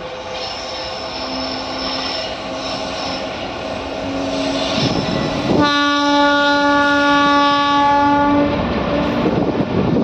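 WAG-9HC electric locomotive running under power, its traction motors giving a steady whine that grows louder as it approaches. About five and a half seconds in, its horn sounds one long blast of about three seconds, then the freight wagons clatter past on the rails.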